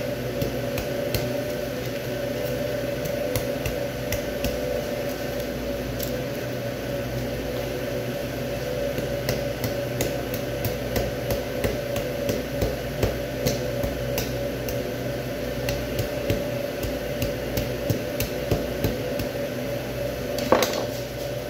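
Boning knife cutting and scraping along beef rib bones, with many short irregular clicks and knocks and one louder knock near the end, over a steady machinery hum.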